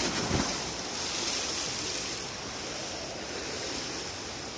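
Swimmers diving off starting blocks into a pool: a splash as they hit the water right at the start, then splashing water for about two seconds that settles into a steady wash of pool noise.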